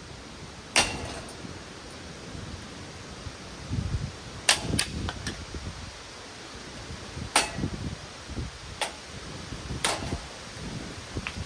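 A series of about seven sharp, irregularly spaced blows striking a ceiling fan's metal body, with low handling noise between the strikes.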